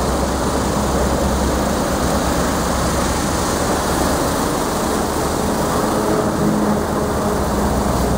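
YIHONG guardrail cleaning truck at work: the truck's engine runs with a steady low hum under the noise of its rotary brushes spinning against the metal guardrail and the hiss of its water spray.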